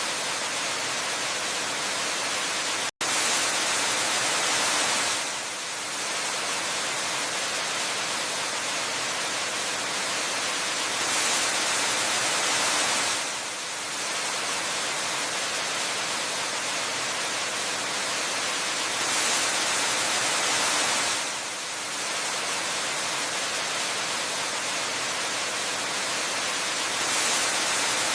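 Waterfall pouring in a steady, even rush, with a split-second cut-out about three seconds in; it swells a little louder about every eight seconds.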